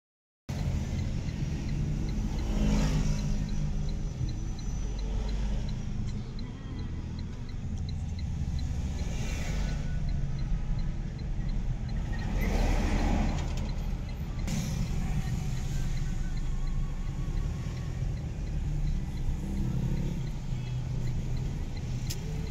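Diesel engine of a Howo 380 A7 dump truck running steadily at idle, with a few louder swells.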